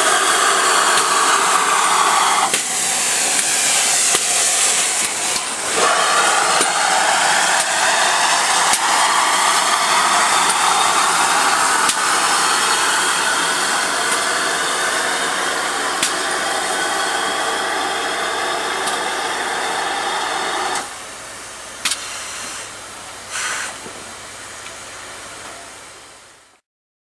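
GWR 2884-class 2-8-0 steam locomotive 3822 hissing steam loudly as it draws slowly past with its train, steam escaping around its wheels. The hiss drops sharply about 21 seconds in, a couple of sharp knocks follow, and the sound fades out near the end.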